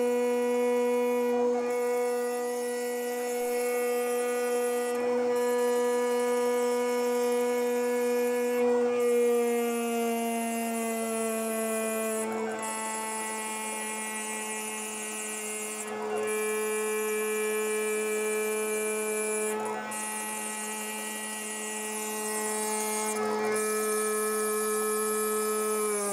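CNC router spindle whining steadily at about 15,000 rpm while a coated end mill face-mills plastic. Its pitch steps down about halfway through and again at the very end as the spindle speed is turned down, because the plastic was melting on the cutter at the higher speed.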